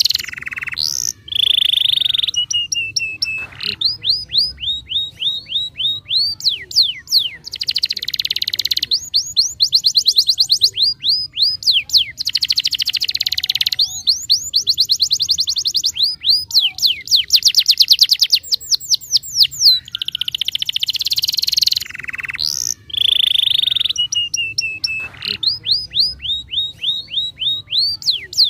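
Domestic canary in full, persistent song: long phrases of repeated notes, some of slower sweeping notes and some of very fast trills, running almost without a break.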